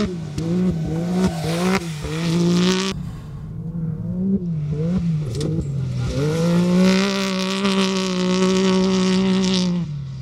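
Can-Am X3 race UTV's turbocharged three-cylinder engine at high revs, the pitch dipping and climbing again and again over the first six seconds as the throttle is worked, then held steady at a high pitch before falling near the end.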